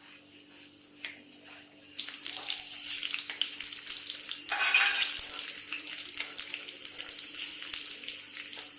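Chopped green chillies sizzling in hot oil in a pan, the sizzle starting suddenly about two seconds in, with a louder spurt of sizzling around the middle.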